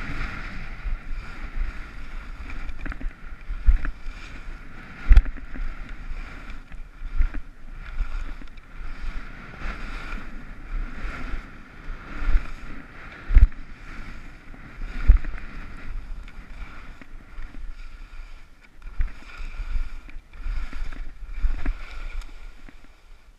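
Skis scraping and chattering over packed, bumpy snow, with wind rushing over the microphone and several sharp thumps as the skis hit bumps.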